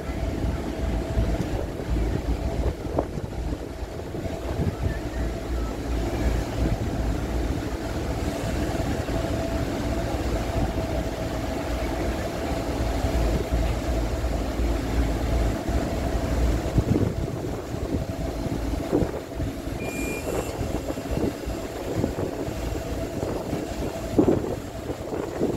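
Catamaran ferry's engines and waterjets running as it manoeuvres stern-first onto the berth, a steady deep rumble with a held mid-pitched hum over churning water. The rumble eases after about sixteen seconds, and a few brief knocks come near the end.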